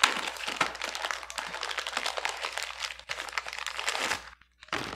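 Crinkling and tearing of white paper wrapping as a small package is unwrapped by hand. The dense crackle stops about four seconds in, with one more short rustle near the end.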